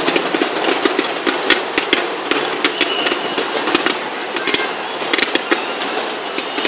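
Ground-fired fireworks crackling and popping: a rapid, irregular run of sharp cracks over a steady hiss.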